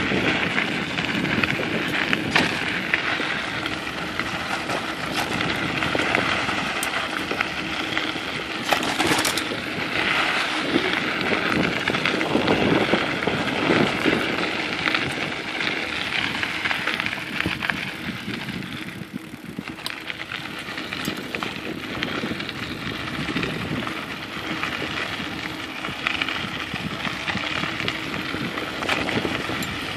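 Bicycle riding along a dirt forest trail: steady tyre and ride noise with the bike rattling over bumps, quieter for a moment about two-thirds through.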